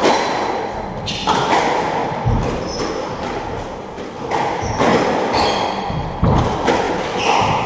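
Squash rally: the ball smacking off racquets and the court walls, sharp hits about once a second, echoing in the enclosed court.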